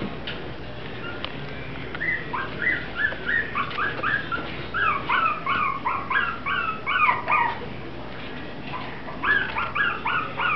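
Six-week-old Mi-Ki puppies whimpering in a string of short, high-pitched cries, about two or three a second, starting about two seconds in, breaking off briefly and starting again near the end.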